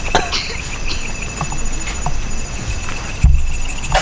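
Insects, likely crickets, chirring steadily in a high pulsing trill, with scattered short clicks and rustles close to the microphone. A heavy low rumble of wind or handling on the microphone comes about three seconds in.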